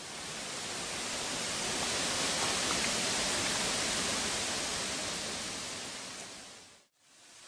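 Water spilling over a stone weir, a steady even rushing that fades up at the start, fades away to nothing about seven seconds in, then fades back up.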